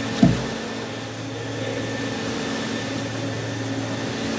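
Steady mechanical hum of a garlic sorting machine running, with one sharp knock about a quarter second in.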